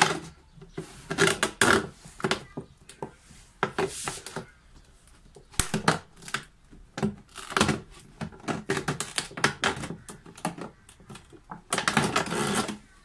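Thin plastic wall of a large PET water bottle crackling and popping as a pointed metal tool is pushed and twisted through it to punch holes, in an irregular run of sharp clicks. Near the end comes a denser stretch of scratchy crackling.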